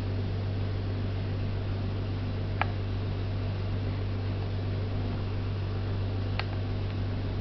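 Steady low electrical hum with an even hiss, like a small fan or motor running, and two brief sharp clicks, about two and a half seconds and six and a half seconds in.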